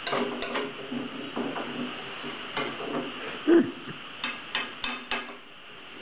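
Metal utensil scraping and clinking against a frying pan as food is stirred on the stove, with a louder knock a little past halfway and four quick taps near the end.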